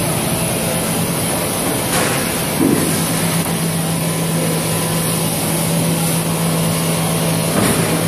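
NORFO B35 portioning machine running, a steady mechanical hum and drone as its conveyor feeds the product through the cutter. Two brief louder noises stand out, about two seconds in and near the end.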